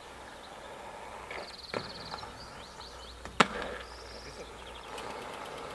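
Aggressive inline skate wheels rolling on asphalt as a skater approaches a wooden box, with two sharp clacks of the skates, the louder one about three and a half seconds in.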